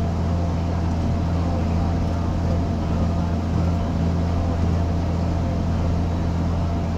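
Tractor engine running steadily under load while spraying, heard from inside the cab as an even, low drone.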